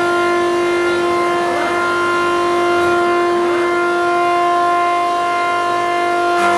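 Wood shaving machine running, a loud steady whine made of several held pitches. Faint sweeping sounds pass through it, and a lower hum joins with a brief crack near the end.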